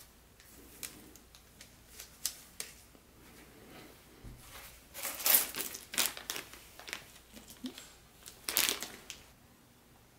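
Clear plastic bag of small plastic parts crinkling as it is handled, loudest around the middle and again near the end, after a few light clicks of plastic toy track pieces in the first seconds.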